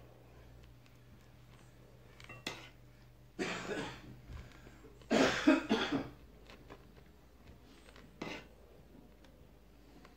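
A person coughing twice, about three and a half and five seconds in, the second cough the louder. Between them are a few light clicks.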